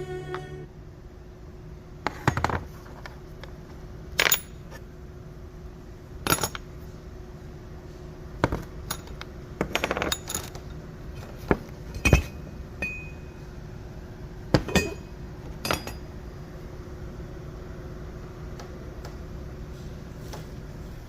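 Metal parts and tools clinking and knocking: about a dozen separate sharp clinks at irregular intervals over a steady low hum.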